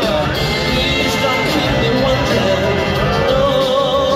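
A live blues-rock band playing a song at full volume, with a bending, wavering melody line coming up near the end.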